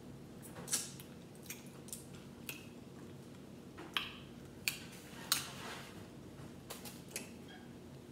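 Boiled crawfish being peeled and eaten by hand: irregular sharp cracks and clicks of the shells breaking, about nine in all, a few of them followed by short wet sucking sounds at the mouth.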